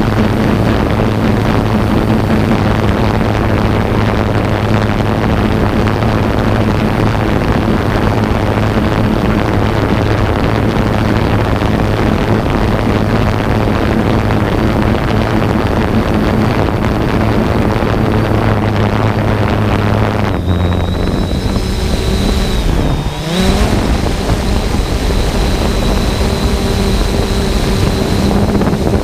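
3DR Solo quadcopter's electric motors and propellers humming steadily in flight, with wind noise on the microphone. About two-thirds of the way through, the hum drops in pitch, dips and swoops briefly as the motors change speed, then settles with a thin high whine on top.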